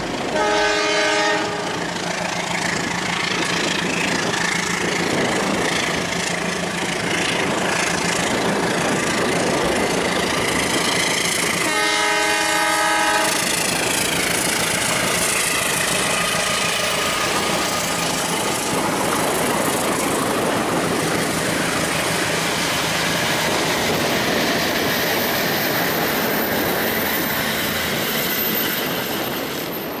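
Toy model CC 206 locomotive running on plastic track with a steady running noise, and its built-in horn sounding twice, once near the start and once about twelve seconds in.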